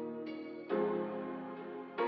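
Soft instrumental background music: sustained chords, changing to a new chord about a third of the way in.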